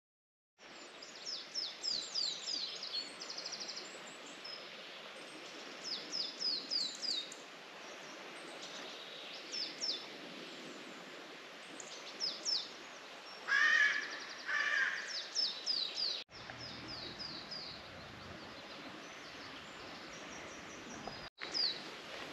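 Outdoor birdsong: a songbird repeating runs of quick, high, falling notes over a steady outdoor hiss, with two harsh crow caws about two-thirds of the way in. The sound drops out briefly twice near the end.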